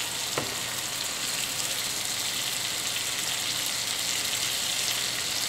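Pieces of nilgai backstrap frying in a cast-iron skillet over a gas flame, a steady sizzle, with a light tap about half a second in.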